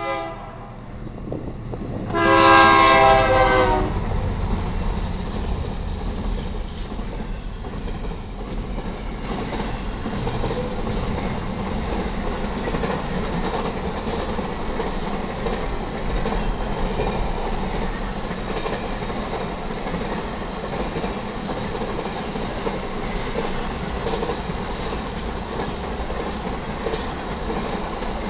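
A GE C44-9W diesel locomotive's air horn gives a short blast and then, about two seconds in, a longer, louder one as it reaches the grade crossing. The intermodal freight train then rolls past steadily, its wheels rumbling and clattering over the rails.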